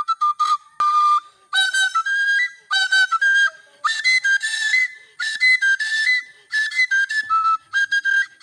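A high whistle-like flute playing a quick melody of short notes, in phrases broken by brief pauses.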